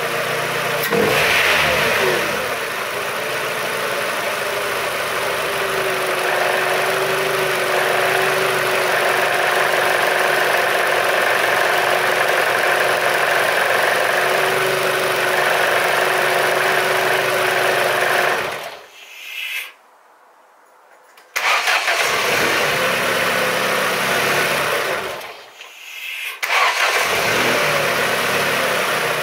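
Ford car engine running steadily with a held tone over it. It dies away twice in the second half, dropping to near silence for a second or two each time, and then comes back.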